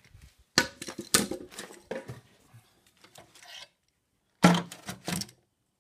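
Plastic wiring-harness connectors being unclipped and handled: sharp clicks and clatter over the first two seconds, then a single loud knock about four and a half seconds in.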